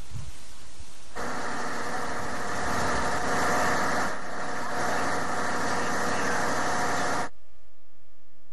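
A motor running steadily with several held tones, starting abruptly about a second in and cutting off suddenly about seven seconds in.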